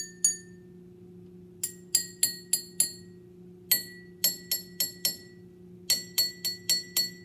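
Water-filled drinking glasses struck in quick runs of about four to six taps each, every tap ringing a clear glassy note. One run ends just after the start and three more follow, each glass a little higher in pitch than the last, since the glasses hold less and less water.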